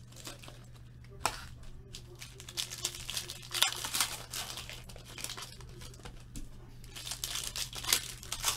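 Foil trading-card packs crinkling and tearing as they are ripped open by hand, in irregular crackly bursts. A low steady hum runs underneath.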